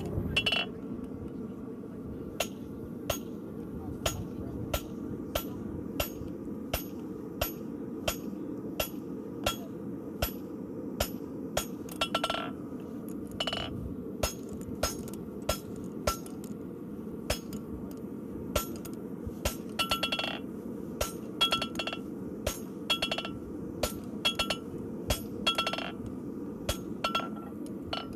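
Farrier's hammer striking steel on an anvil about twice a second, each blow with a short metallic ring, cutting the inside edge off a steel keg horseshoe. A steady low rumble sits underneath.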